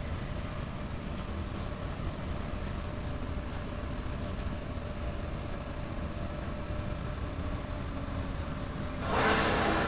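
Steady low mechanical rumble, with a louder hissing burst starting about nine seconds in.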